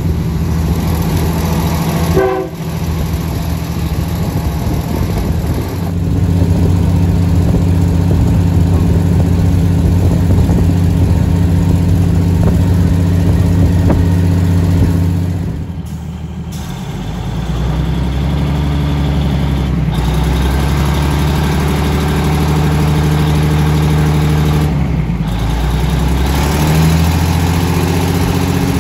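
Diesel train running, heard from inside a passenger coach: a steady low engine drone with running noise. The drone's pitch shifts at several abrupt breaks, settling lower and steadier near the end as the train runs along a station platform.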